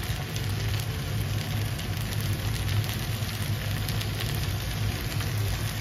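Leg of mutton frying in a nonstick pan on a gas burner as gravy is spooned over it: a steady low hum under an even hiss with faint crackles.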